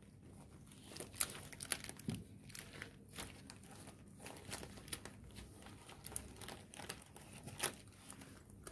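Clear plastic wrapping around a makeup brush set crinkling and crackling as it is handled and pulled open, a run of sharp crackles starting about a second in.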